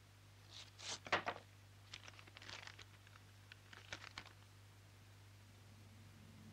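Paper rustling and crinkling as a letter is unfolded and handled, in a few short bursts, the loudest about a second in, over a low steady hum.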